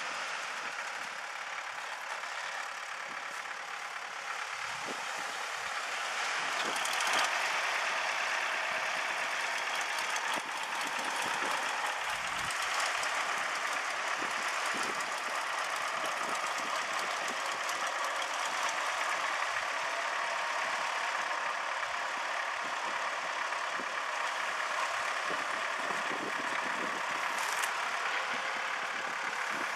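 Diesel farm tractor engine running as a tractor drives up pulling an empty boat trailer. The sound grows louder about seven seconds in and then holds steady.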